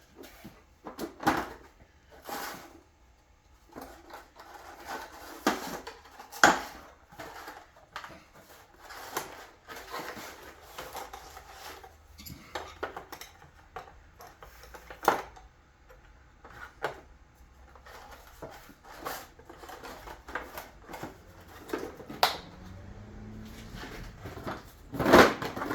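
Irregular clinks and knocks of small metal parts and hand tools being handled on a workbench, with a louder clatter near the end.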